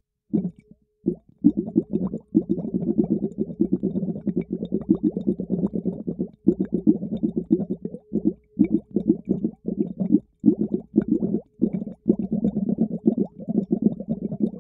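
Air blown through a tube into a bowl of water, heard underwater through a latex-covered hydrophone: rapid low bubbling and gurgling in runs broken by brief pauses.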